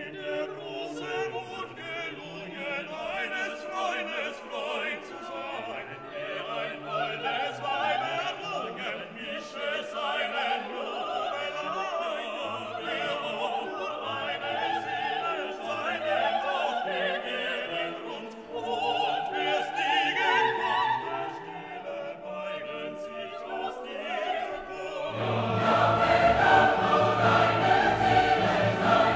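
Background music: orchestral classical music with operatic singing and choir, growing fuller and louder near the end.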